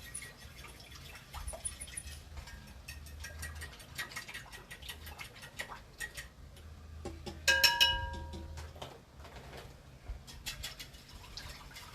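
Batter being stirred in a bowl: a utensil clicks and scrapes against the bowl over and over. About halfway through it strikes the rim once with a louder, ringing clink. A faint low hum runs underneath.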